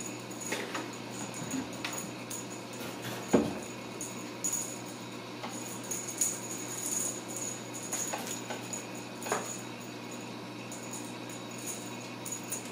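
Kittens playing with toys on a tile floor: scattered light clicks and clatters, one louder knock about three and a half seconds in, and a small bell jingling on and off in the middle.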